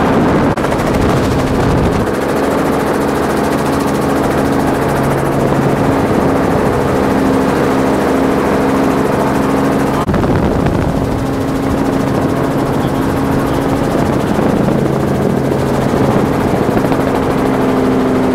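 Helicopter rotor and engine noise heard from aboard the aircraft: a loud, steady drone with several held low tones, briefly broken about halfway through.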